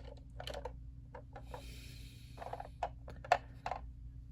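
Transformers Optimus Prime toy being handled: a string of small clicks and taps, a short rubbing sound about two seconds in, and one sharper click about three seconds in.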